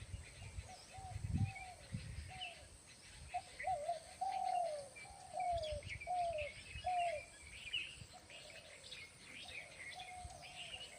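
A bird calling a long series of short, mellow notes that slide downward, repeated over and over, with other small birds chirping higher in the background.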